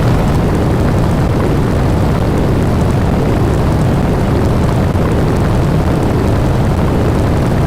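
Loud, steady rumbling noise, heavy in the lows and without any rhythm, like a distorted sound effect.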